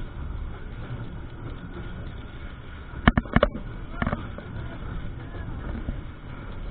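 Steady low rumble of a moving train heard from inside the passenger coach, with a quick cluster of three or four sharp knocks about three seconds in and one more a second later.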